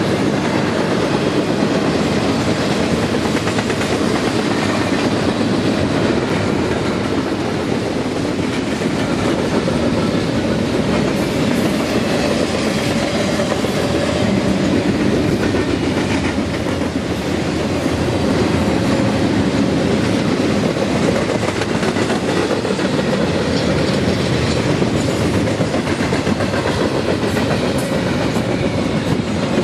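BNSF freight train cars rolling past at speed: a loud, steady noise of steel wheels on rail.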